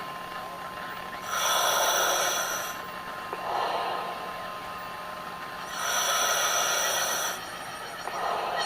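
Rhythmic swells of hissing noise, alternating a louder, brighter surge with a softer, duller one about every two seconds, over a faint steady hum.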